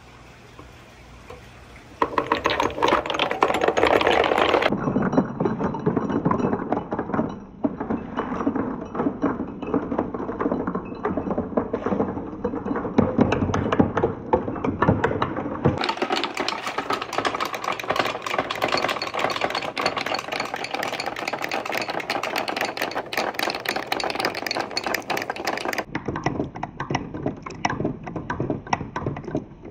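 Marbles rolling and clattering down a wooden water marble run, with water running along the course: a dense, steady rattle that starts about two seconds in and changes tone several times.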